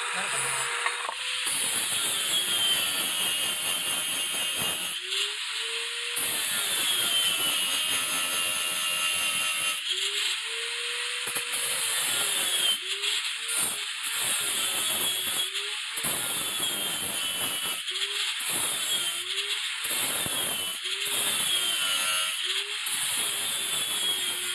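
A power tool working the metal of an axe head in repeated passes, each a second or a few long with short breaks between, its pitch dipping and recovering as it bites.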